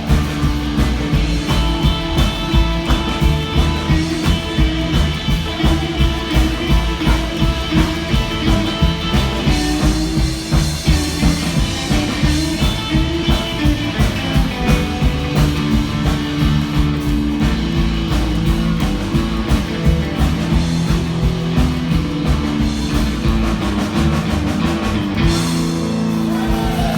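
Rock-and-roll band playing: electric guitar and a drum kit over a steady beat of about two a second.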